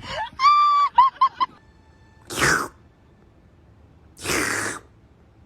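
An animal's honking call: one held note and three short ones after it, then two breathy hisses a couple of seconds apart.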